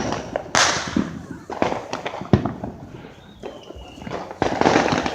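Fireworks going off nearby: an irregular run of sharp firecracker bangs and louder crackling bursts, with a short whistle about halfway through.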